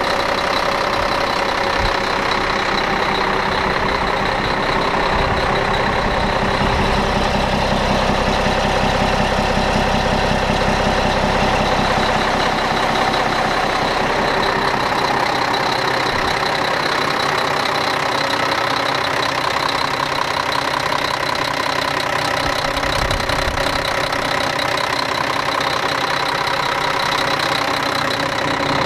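Volvo D12 inline-six turbo diesel in a 2000 Volvo semi idling steadily as it warms up after a cold start, with a constant high whine over the engine note.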